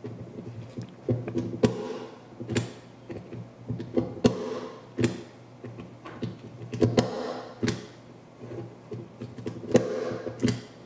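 Punch-down tool pressing Cat6 wires into a keystone jack's slots, giving about six sharp clicks spread irregularly, with handling rustle between them. Each click is the tool seating a conductor and trying to cut off the excess wire.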